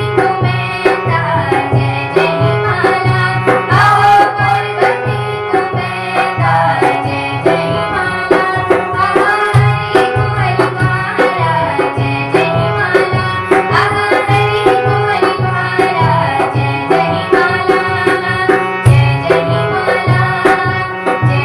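Instrumental passage of a devotional bhajan: melodic instruments over a steady, rhythmic hand-drum beat.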